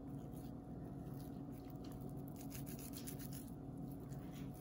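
Hands squeezing and rolling a ball of damp grated soap scraps: faint, irregular gritty rubbing and crackling of the packed crumbs between the palms, over a low steady hum.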